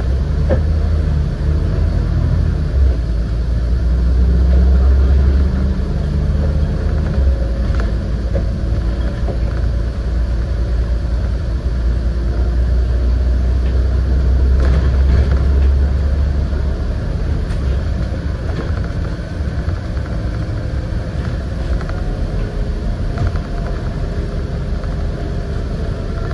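Scania N94UD double-decker bus driving, heard from inside the saloon: a continuous low engine rumble with road noise that swells and eases, and a few short clicks and rattles.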